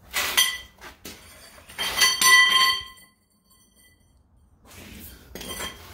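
Steel socket and hand tools clanking: a sharp metal-on-metal clank at the start, then a louder clank about two seconds in that rings on for most of a second.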